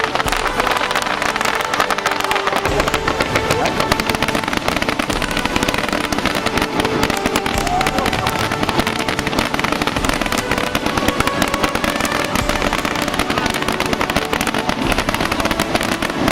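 Fireworks display going off: a dense, continuous crackle of many small bursts with no pause, none standing out as a single big bang.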